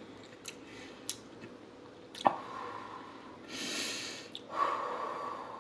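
A person breathing heavily close to the microphone after eating until full: two long exhales a little over three seconds in, the second with a sighing note. A few small mouth clicks come before them, with a sharper click a little after two seconds.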